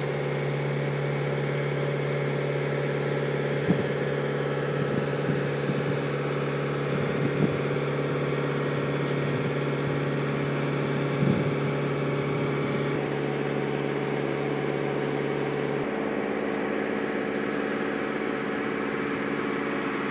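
Boom lift's engine running steadily at one speed, with a few light knocks; its lowest part drops out about three-quarters of the way through.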